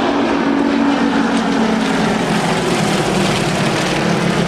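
Propeller aircraft engine running steadily, its pitch dropping about two seconds in.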